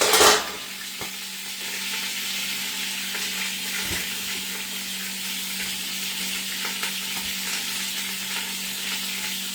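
Chuck roast searing in hot olive oil in a pan on high heat, a steady sizzle with grease spattering. There is a brief loud burst of sizzle right at the start.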